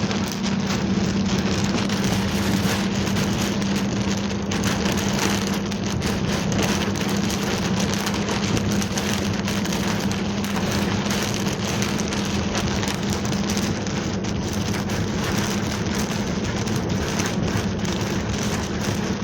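Heavy rain pouring down in a steady, dense downpour, with a steady low hum underneath.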